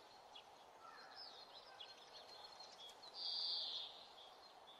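Faint outdoor background with scattered small bird chirps, and a brief high buzz of under a second about three seconds in.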